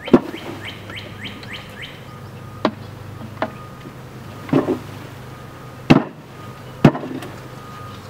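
A wooden swarm box is jarred and knocked to shake a swarm of honey bees out into a top bar hive: about six sharp wooden knocks at uneven gaps, the first the loudest. Near the start a bird chirps a quick run of about seven notes.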